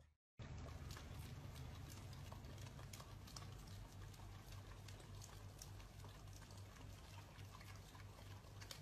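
Two husky dogs, an adult and a puppy, licking an ice cream cone: faint, quick wet lapping clicks.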